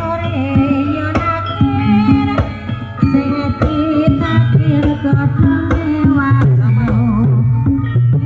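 Recorded music playing loud through a ground-stacked sound system of subwoofers and line arrays: a hand-drum-led song with a wavering melody over heavy bass.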